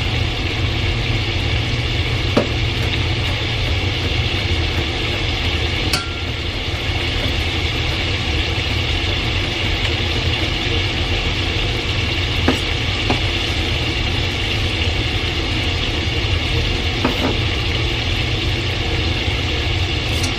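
Sliced sausage sizzling steadily in a cast-iron skillet as it browns and renders its fat, over a steady low hum. A few sharp knife taps on a wooden cutting board come as garlic is minced.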